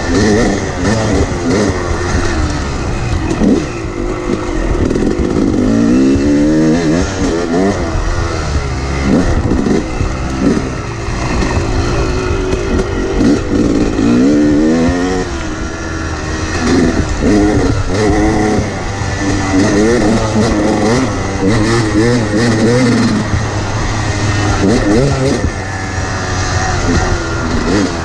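Yamaha YZ250 two-stroke single-cylinder dirt bike ridden hard, its engine revving up and dropping off over and over as the throttle is worked.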